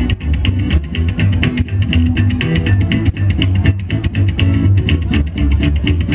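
Live upright double bass and strummed acoustic guitar playing an instrumental passage without vocals. Deep plucked bass notes run under a fast, even rhythm of sharp clicks.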